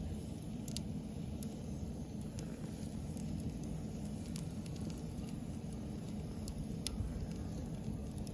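Wood fire crackling in a fire pit: scattered sharp pops and snaps, irregular and a second or more apart, over a steady low rushing noise.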